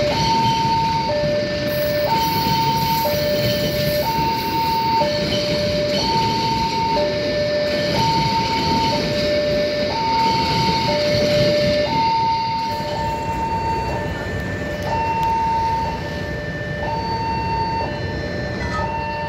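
Level-crossing warning alarm sounding its two alternating tones, a higher and a lower one about a second each, over the rolling rumble of the KA Parcel Tengah freight train's wagons passing over the crossing. The train noise dies away about two-thirds of the way through while the alarm keeps going.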